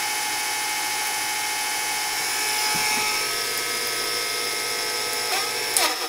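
Old home-movie film projector running with a steady high-pitched mechanical whir and hiss. A few sharp clicks and a brief rattle come near the end.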